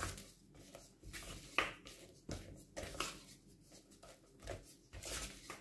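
Spatula stirring and scraping thick chocolate banana bread batter around a mixing bowl: soft, irregular scraping and squishing strokes.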